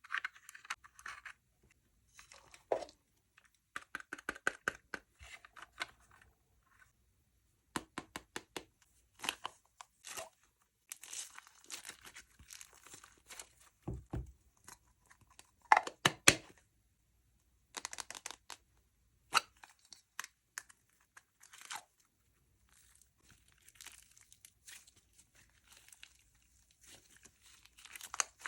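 Slime being squished, stretched and mixed by hand, making sticky crackling and popping clicks in irregular bursts, with short pauses.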